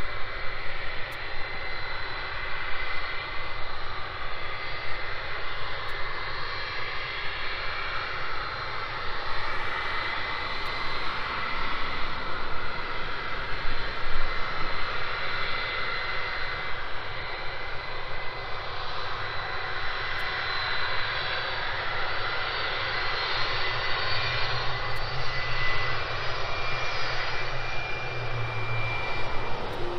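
Boeing 757-200 freighter's jet engines running at taxi power as it taxis for take-off: a steady rush of jet noise with a high-pitched whine. A lower hum joins in near the end as the aircraft turns onto the runway.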